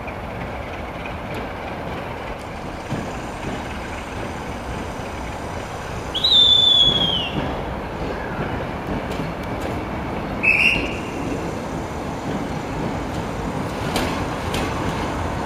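Passenger coach rolling slowly over station tracks and switches during shunting, with a steady rumble. A high wheel squeal about six seconds in slides down in pitch over about a second, and a second, shorter squeal follows near the ten-second mark.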